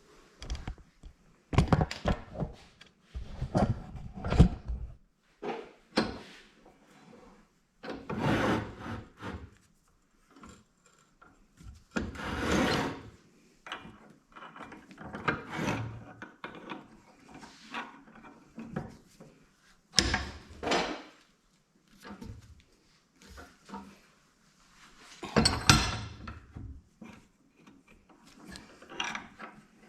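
Hands working metal pipe fittings: irregular rubbing and scraping strokes about a second long, separated by short pauses.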